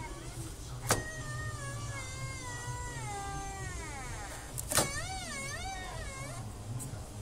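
Land Rover V8 engine's water pump making an abnormal squeal from its shaft: a wavering, cat-like squeal that starts with a sharp click about a second in and again near five seconds, sliding down in pitch in between, over the engine's steady low hum. The noise marks a fault at the pump shaft.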